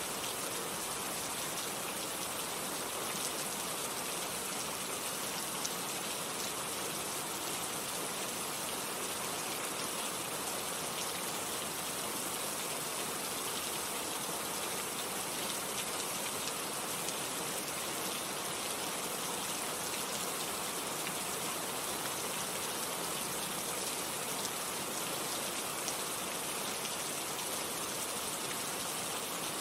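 Steady heavy rain, a dense even hiss of falling drops with scattered sharper drop impacts.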